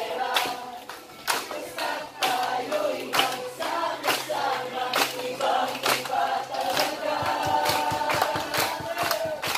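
A large group of adults and children singing a song together, clapping their hands in time with it. The claps come quicker near the end.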